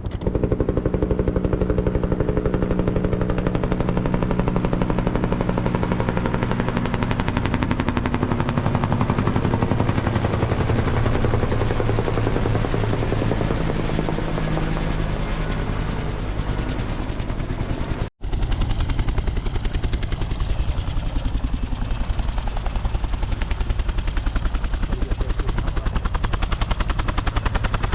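Rescue helicopter close by, its rotor chopping in a rapid, steady beat over the engine's whine, loud throughout. The pitch of the engine tones shifts through the first half, and the sound cuts out for an instant about two-thirds through.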